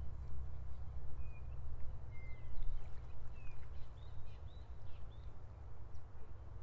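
Riverside ambience: a low, uneven rumble of wind on the microphone under a faint hiss. A run of short, high bird chirps and whistles comes in from about a second in and stops about four and a half seconds in.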